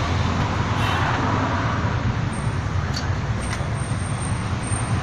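Steady low rumble of motor vehicle noise, with a faint high whine from about two seconds in.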